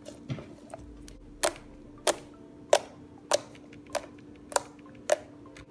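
Blue floam slime being pressed and poked by fingers, giving a run of sharp pops about every half second or so, starting about a second in.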